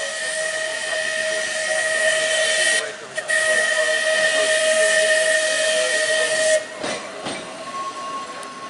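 Manx Electric Railway tram car 8's whistle sounding two long, hissy blasts, with a short break between them, the second ending about two-thirds of the way in. After that the tram runs on quieter over the rails.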